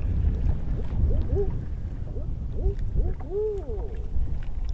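An owl hooting from the shoreline woods: a few short hoots followed near the end by a longer hoot that rises and falls, faint under steady wind rumble on the microphone.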